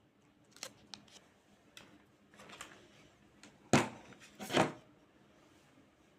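Handling noise: a few light clicks and taps, then two louder knocks about a second apart near the middle.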